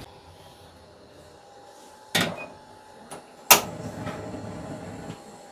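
Two sharp knocks of kitchen things being handled at the sink, about a second and a half apart, the second louder, with a small click between them.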